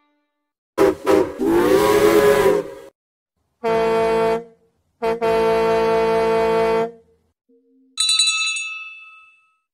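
A string of separate recorded train sound effects: a wavering, bending horn blast about a second in, then two steady train-horn blasts, then a single bell ring that dies away near the end.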